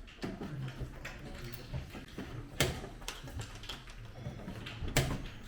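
Two sharp clicks about two and a half seconds apart over a faint background murmur, the kind of sound a game clock being pressed or a checkers piece being set down on the board makes.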